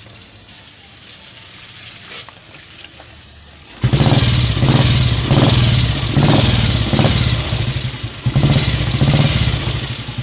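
Royal Enfield Bullet 350 cast-iron single-cylinder engine being kick-started after carburettor tuning. About four seconds in it fires and runs loudly, swelling and easing several times, and it starts readily.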